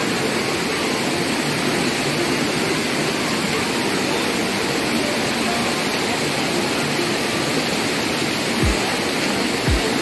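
Waterfall water rushing steadily down rock cascades, close by. A couple of low thuds near the end.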